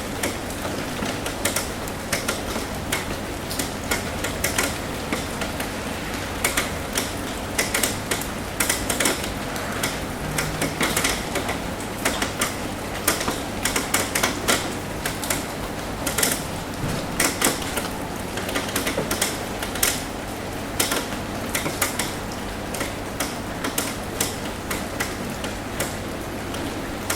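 Rain tapping on a roof: irregular sharp taps of drops, at times coming thick and fast, over a steady patter of rain.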